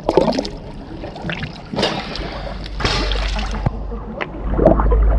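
Pool water splashing and lapping right at the microphone at the water line, with louder splashes about two and three seconds in and a low rumble of water moving against the camera in the second half.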